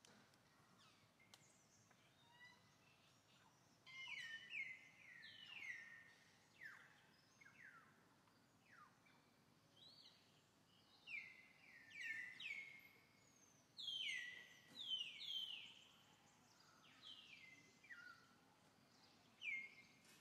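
Birds calling: runs of short whistled notes, each sliding down in pitch, repeated in bursts from about four seconds in over faint outdoor background noise.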